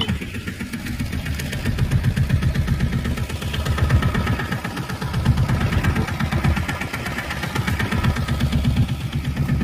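A fishing boat's engine running steadily, a low, fast, even throb.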